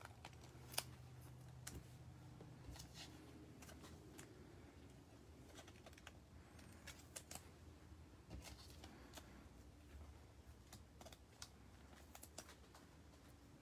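Faint, irregular clicks and light rustles of trading cards and plastic card sleeves being handled.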